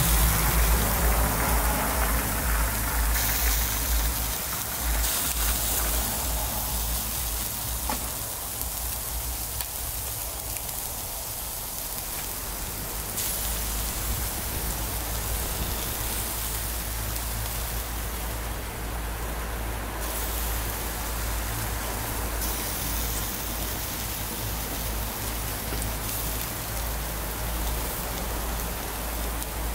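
Marinated pork barbecue skewers sizzling on a grill: a steady, even hiss.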